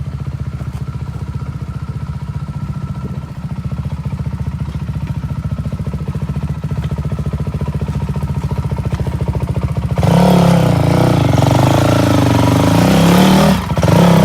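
Dirt bike engine idling with a steady even beat, then revving hard from about ten seconds in, its pitch rising and falling as the throttle is worked, with a brief drop near the end.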